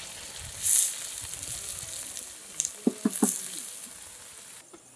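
Chopped onion, tomato, green chilli, ginger and garlic sizzling in hot coconut oil in a clay pot, with a surge of sizzling about a second in. A few short knocks a little past halfway, and the sizzle dies down near the end.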